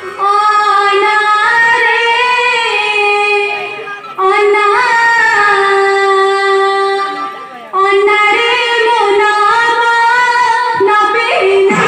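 A high female voice singing three long, drawn-out phrases with small ornaments on the held notes. Each phrase starts suddenly: at the start, about four seconds in, and about eight seconds in.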